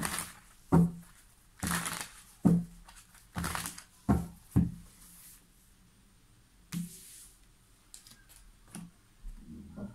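Tarot cards being shuffled and laid down on a table: a run of short rustling swishes and soft knocks, then a single swish and a few light ticks near the end.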